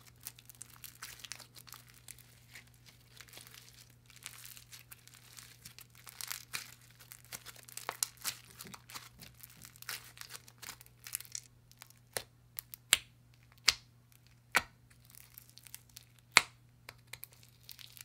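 Clear slime with pink and purple foam beads stretched and squeezed by hand, making a fine crackle of small clicks and pops. Past the middle the crackle thins to sharper single pops about once a second.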